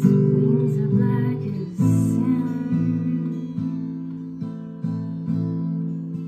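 Slow instrumental music: chords on a stringed instrument struck one at a time, each left to ring and fade out before the next.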